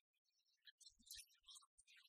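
Near silence: faint hall background with a few soft low knocks about a second in.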